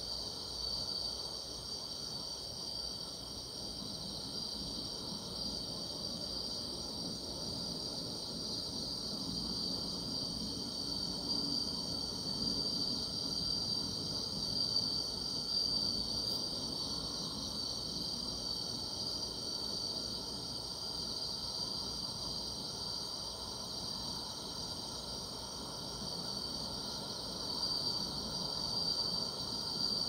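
A steady chorus of summer-night grass insects, a continuous high-pitched trilling with no breaks.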